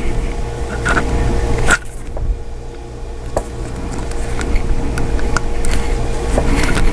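Small plastic clicks and handling noise as a Figma action figure's hand is worked off its joint peg, a few sharp clicks spaced over several seconds, over a steady low rumble and hum.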